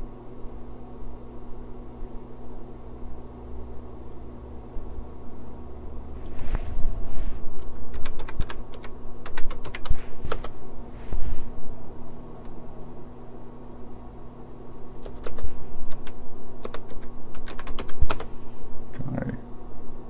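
Computer keyboard keys being typed in two quick spells of clicks, the second near the end, over a steady low hum.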